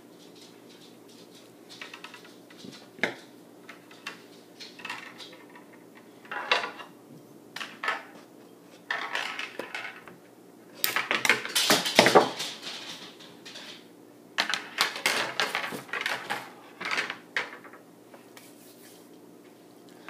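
Scissors snipping and working on stiff wire: irregular metallic clicks, snips and scraping, thickest and loudest in a burst about halfway through and again a few seconds later.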